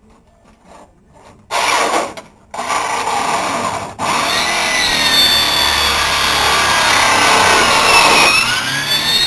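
Power saw cutting through car body sheet metal: two short cuts, then a steady cut from about four seconds in, with a high tone that bends in pitch near the end.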